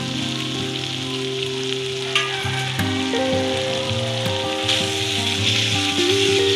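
Matar paneer gravy sizzling in a kadai as chopped coriander leaves go in. It is stirred with a spoon near the end, and the sizzle grows louder about two-thirds of the way through. Soft background music with held notes plays under it.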